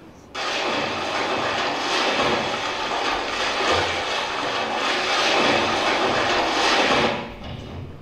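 A loud, even rushing noise, a sound effect played for the scene, starting abruptly and fading out about seven seconds in.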